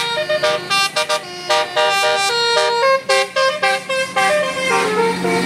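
Bus telolet horn of the basuri type playing a fast melody of short, stepping notes with brief breaks between phrases.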